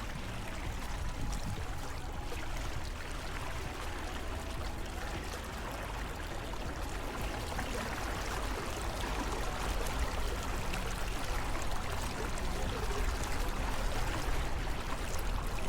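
Water lapping and trickling around a kayak on a lake, a steady wash of sound with a low rumble underneath that grows a little louder in the second half.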